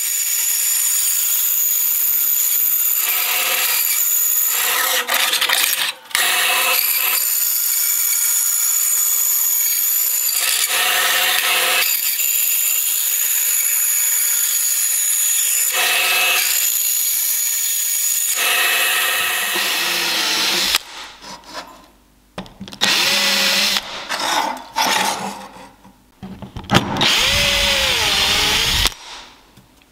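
Bench band saw running and cutting a thin metal sheet, a steady high whine that breaks off briefly about six seconds in and stops about twenty seconds in. Then a drill with a countersink bit cuts into an aluminium plate in several short runs, its pitch rising and falling.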